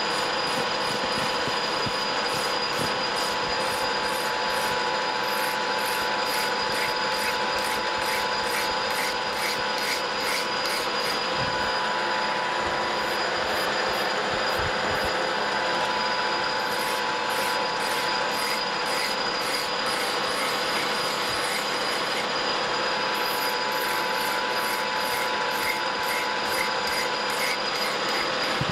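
A metal lathe runs with a steady gear whine while a flat file rubs across the spinning ACME-threaded shaft, taking the wire edges off the thread tops. The filing is a regular scratching of about two to three strokes a second, with a pause partway through.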